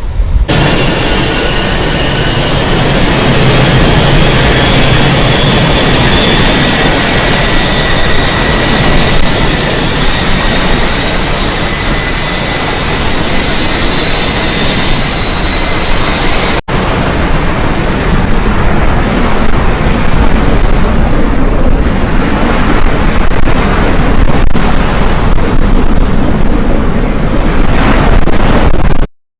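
Loud jet aircraft engine noise, a dense roar with a high whine that slowly rises in pitch. About two-thirds of the way through it breaks off sharply and gives way to a rougher roar without the whine, which cuts off abruptly near the end.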